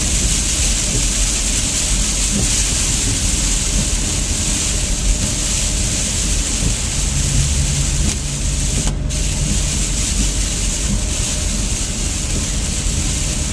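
Car interior while driving on a wet road in heavy rain: a steady hiss of rain and tyre spray over a low road rumble. The hiss cuts out briefly about nine seconds in.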